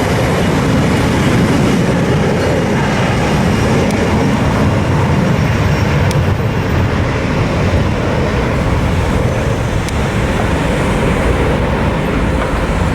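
Jet airliner's engines running at takeoff thrust during the takeoff roll: a loud, steady, low rumble with no pause.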